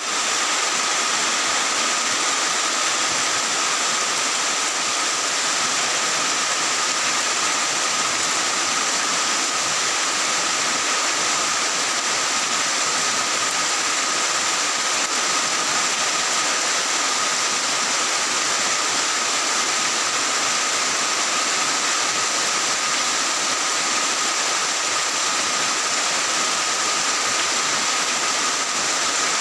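Heavy rain falling steadily on clay-tiled and corrugated roofs: a dense, even hiss with no let-up.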